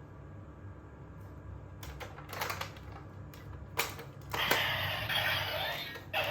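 Sharp plastic clicks from the Kamen Rider Drive DX Tridoron toy car being handled and operated, several spaced a second or so apart. From about four and a half seconds in, a burst of electronic sound comes from the toy's speaker.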